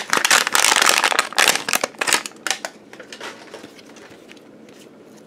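Crinkly wrapping of an LOL Surprise ball being peeled and torn off by hand: a rapid flurry of crackles for about the first two and a half seconds, then only a few faint rustles.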